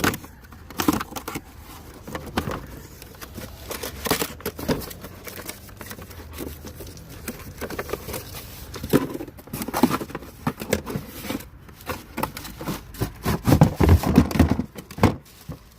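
Rustling and crinkling of packaging with irregular clicks and knocks as a power tool is unpacked from its box. The handling is busiest and loudest near the end.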